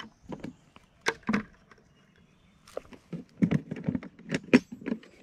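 Fishing gear being handled: a string of irregular clicks, knocks and light rattles, a few at first, then a busier run in the second half.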